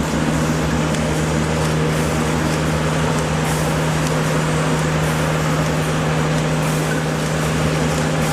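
A motor running steadily, with a constant low hum over an even wash of noise.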